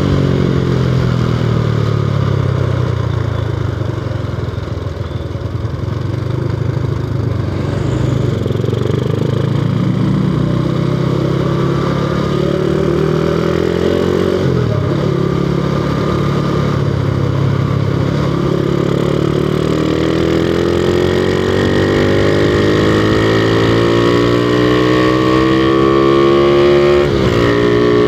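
Honda Revo Absolute's single-cylinder four-stroke engine with an aftermarket Tsukigi exhaust, heard while riding. The engine note first falls away, then climbs under throttle, dropping suddenly in pitch at an upshift about halfway and again near the end.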